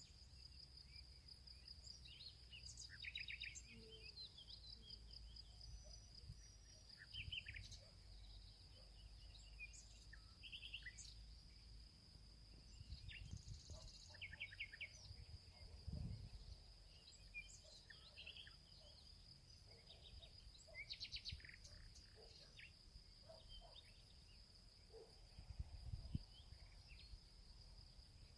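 Forest birds calling and singing, faint short chirps and quick trills scattered throughout, over a steady high-pitched insect drone. A few low thuds come now and then, the loudest about two-thirds of the way in and again near the end.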